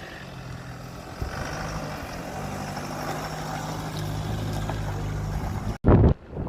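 Off-road 4x4 engine running with a steady hum that grows gradually louder. Near the end the sound cuts out abruptly and a brief loud rumble follows.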